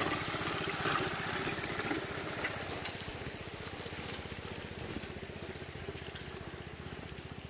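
Small gas engine at a gold-prospecting trommel running steadily with a fast even beat, with water spraying and washing through the trommel; the wash fades in the first second or so and the whole sound grows quieter.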